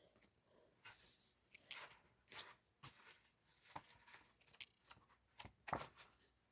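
Faint rustling and light clicks of photocards being handled and flipped through, a few short soft taps scattered irregularly.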